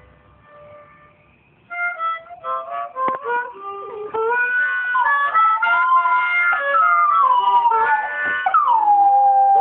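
About two seconds in, a harmonica plays a few short blues notes. From about four seconds a dog howls along in long, wavering notes that slide down in pitch.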